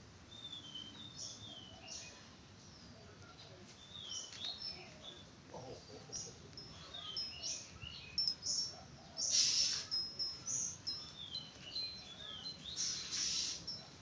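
Oriental magpie-robin singing: a varied run of short whistled notes, many sliding down in pitch, growing busier in the second half. Twice in the second half there is a louder, hissing, rasping burst.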